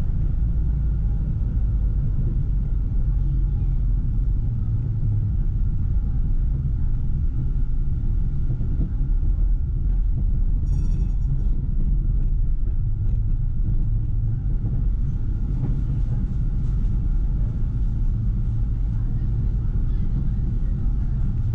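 Tram running along its track: a steady low rumble of the wheels on the rails and the running gear. A bell rings briefly about ten seconds in.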